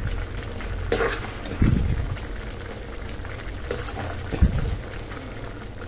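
Thick gravy simmering in a frying pan while a ladle stirs it, with a click of the ladle on the pan about a second in and two soft low thuds.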